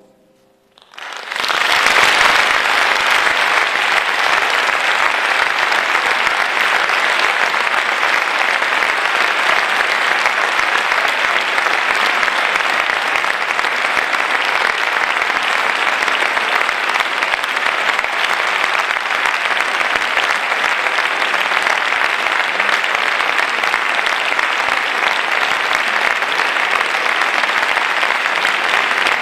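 Audience applause that starts about a second in, after a brief hush, and then holds steady.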